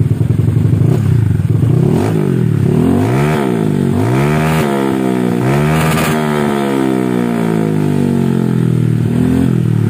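Honda Vario scooter engine with a loud racing exhaust, revved in a series of quick throttle blips that climb higher each time, then winding slowly back down to idle near the end. It is being revved to check for a hesitation in its pickup after its tuning was reworked.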